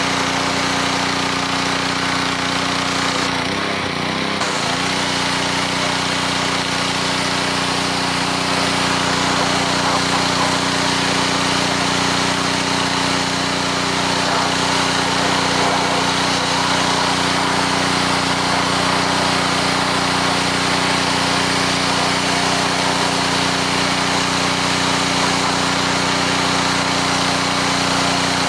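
Gas pressure washer with a Honda engine running steadily under load, its high-pressure jet hissing against a stone. The hiss drops out for about a second, about four seconds in, then carries on.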